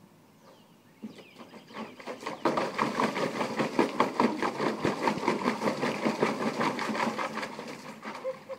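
German Shepherd rapidly pawing at the water in a small plastic kiddie pool, splashing over and over. It starts about a second in, is fast and loud from about two and a half seconds, and tails off near the end.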